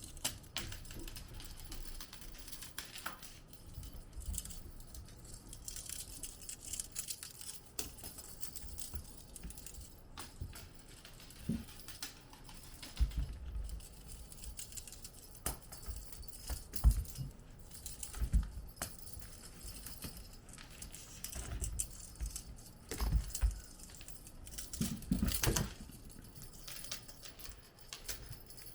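Kittens playing with toys on a floor: scattered soft thumps, light jangling rattles and the patter and scrabble of small paws.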